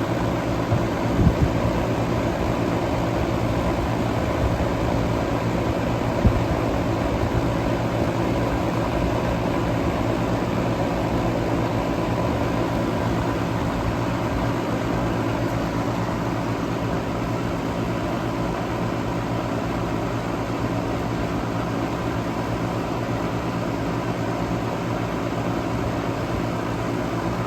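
Outdoor condensing unit of an unbranded 2018 R-410A central air conditioner running steadily: a low compressor hum under the rush of the condenser fan, with a couple of brief faint taps in the first few seconds. The unit is running smoothly and well.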